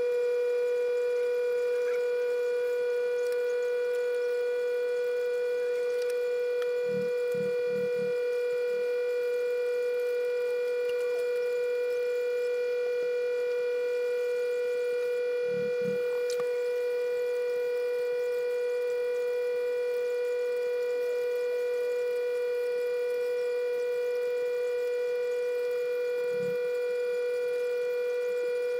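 A steady buzzing tone held at one pitch, with a stack of overtones and no change in level. A few faint low thuds sit under it: a quick run of four about seven seconds in, two near the middle, and one near the end.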